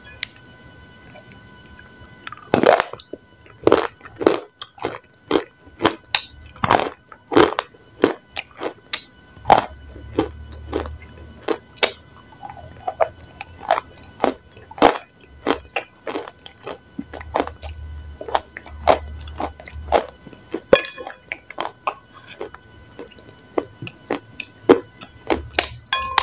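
Irregular crunches and sharp cracks of soaked Eko chalk being broken with the fingers and bitten close to the microphone, some of them loud.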